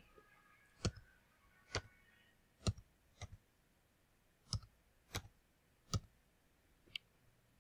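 Computer keyboard keys being pressed one at a time: eight separate faint clicks, about one a second, as an eight-digit number is typed in digit by digit.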